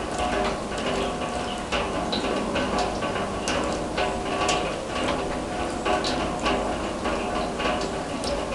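Raindrops striking a steel drum: irregular metallic pings, several a second, each ringing on at a few steady pitches.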